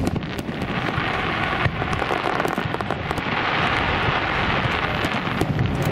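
Fireworks display: aerial shells bursting, with many quick small pops over a dense hiss and a few low thuds.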